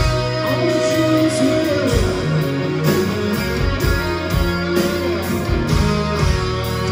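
Live hard rock band playing an instrumental passage, with an electric guitar lead line that holds and bends notes over the drums and bass.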